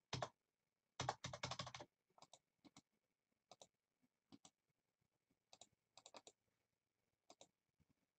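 Faint typing on a computer keyboard: a quick run of key clicks about a second in, then scattered single keystrokes.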